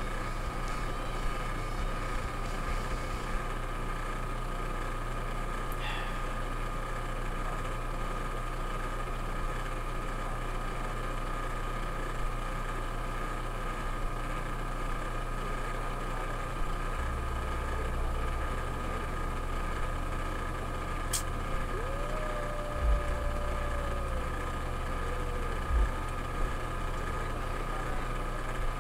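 A steady mechanical hum with several constant tones, with a faint click and a couple of soft low thumps in the last third.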